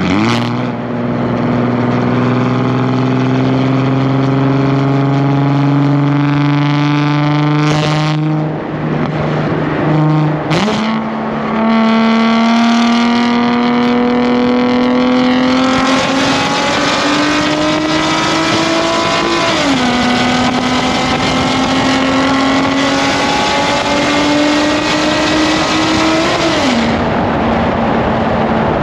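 Nissan 370Z's 3.7-litre V6 exhaust under hard acceleration in a tunnel, the engine note climbing steadily in pitch through each gear. There are brief cracks and a break in the note about eight and ten seconds in, and the pitch drops sharply at two upshifts, about two-thirds of the way through and near the end.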